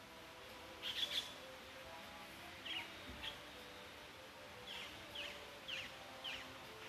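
Bird chirping: a quick cluster of sharp high chirps about a second in, then short chirps repeated every half second or so.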